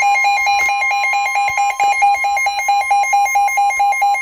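Midland S.A.M.E. weather alert radio sounding its warning alarm: a loud, rapidly pulsing electronic beep, about seven a second, over a steady high tone. The alarm signals a severe thunderstorm warning.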